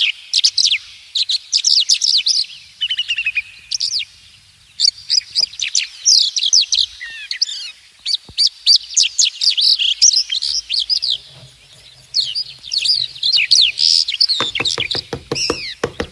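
Small birds chirping and twittering without a break, many quick high chirps overlapping. About a second and a half before the end, a fast, even run of light taps or knocks joins in.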